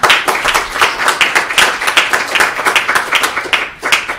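Small audience applauding: a dense burst of hand claps that thins out to a few last claps near the end.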